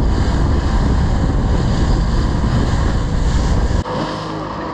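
Small motorboat running across rough open sea: heavy wind buffeting on the microphone over the boat's motor and the water. Near the end it cuts to a quieter, steady motor hum.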